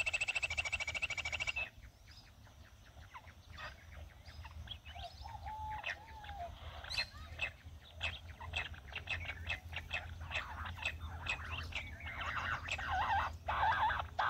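Jungle bush quail calling: scattered short chirps that build into a dense, chattering chorus near the end. It opens with a rapid, even buzzing trill that cuts off suddenly a second and a half in.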